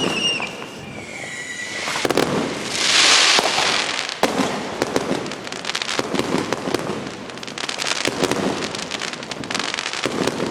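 Fireworks going off: a whistle falling in pitch at the start, a loud hissing burst about three seconds in, then a long run of rapid crackling pops.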